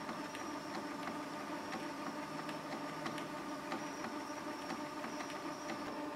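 Canon PIXUS iX6830 inkjet printer running its start-up routine after being switched off, unplugged and powered back on: a steady motor hum with a few faint clicks.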